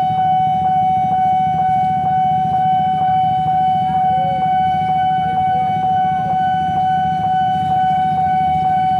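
Railway level-crossing alarm sounding: a steady high tone with a short ding about three times a second, over a steady low rumble.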